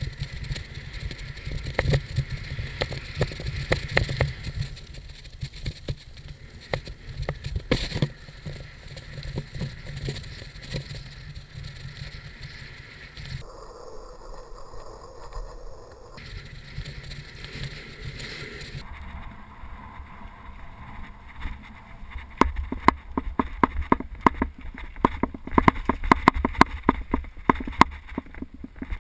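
Mountain bike being ridden over rough dirt trail: tyre noise with rattling and frequent clicks and knocks from the bike. The sound changes abruptly twice, and the rattling grows denser near the end.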